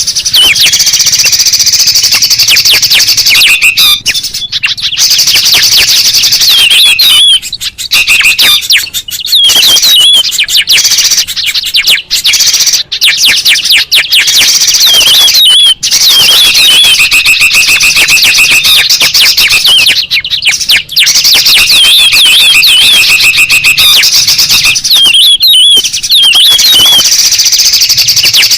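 Loud, dense chattering of agitated songbirds, a bird-lure call recording: rapid, repeated wavering notes, broken by a few short pauses.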